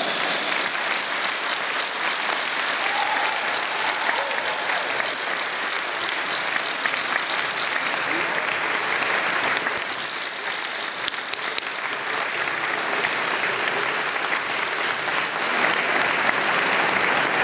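Arena audience applauding: a steady wash of clapping that grows a little louder near the end.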